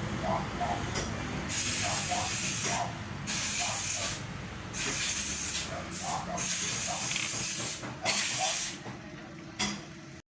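Yamaha Mio Soul i 125 scooter engine running with a steady low hum, under loud bursts of hissing that come and go every second or two. The sound cuts off suddenly near the end.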